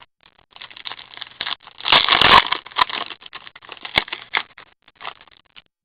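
Crinkling and scraping of a trading card pack being opened and cards being handled, with small clicks throughout, loudest about two seconds in.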